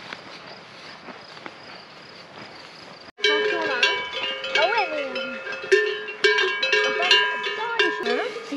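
Bells on a grazing herd of horses ringing irregularly, several bells at different pitches clanking over one another, starting about three seconds in after a soft steady rustle.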